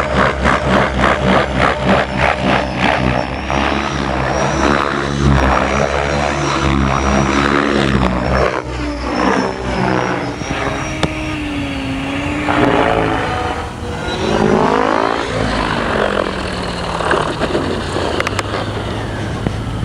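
Electric-converted Align T-Rex 700 radio-controlled helicopter in flight: rotor blades chopping over the whine of its Neu 1915 brushless motor. The chop pulses strongly for the first few seconds, then the pitch sweeps up and down as the helicopter manoeuvres and passes by.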